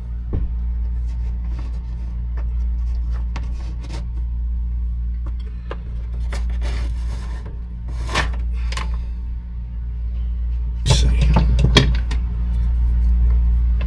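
Small clicks, rubs and scrapes of hands and tools working on wire splices, with a louder burst of handling about eleven seconds in, over a steady low hum.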